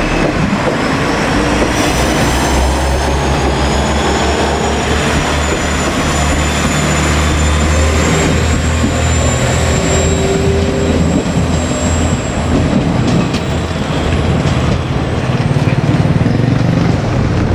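Two-car KiHa 47 diesel railcar train running by at close range: diesel engine running and wheels clattering on the rails, with a thin high wheel squeal that slowly rises in pitch.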